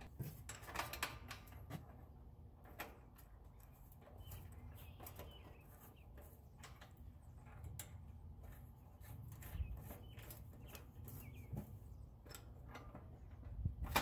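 Scattered light clicks and taps of small metal parts as a gas control valve is fitted by hand onto a gas grill's manifold pipe.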